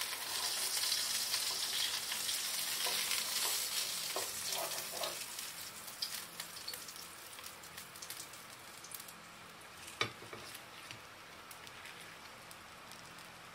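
Fish steak frying in oil in a hot pan: a loud, dense sizzle that dies down after about five seconds to a faint sizzle with scattered ticks, and one sharp click about ten seconds in.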